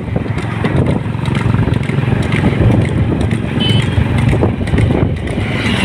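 Motorcycle engine running steadily at road speed, with wind and road noise.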